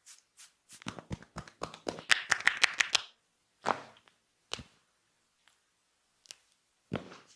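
Hands slapping and tapping in a fast run that quickens and grows louder, up to about eight strokes a second, then stops; a few single slaps follow, spaced out.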